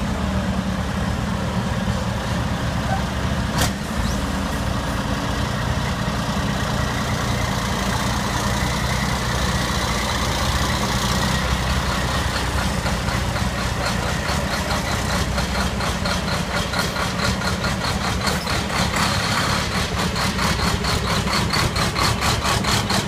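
Diesel engines of European race trucks idling, a steady low running sound. In the second half a closer engine pulses with a quick, even beat.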